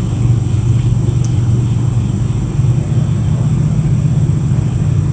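A steady low rumble with a faint high steady tone above it, unchanging throughout.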